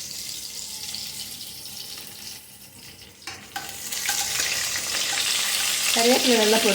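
Curry leaves and whole spices sizzling and spluttering in hot coconut oil in a pan. The sizzle eases for a moment, then comes back louder with a few pops from about four seconds in.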